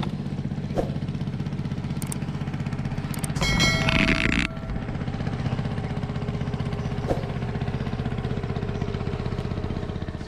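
A small boat engine runs steadily with a fast, even low throb. About three and a half seconds in, a louder noisy rustle lasts about a second.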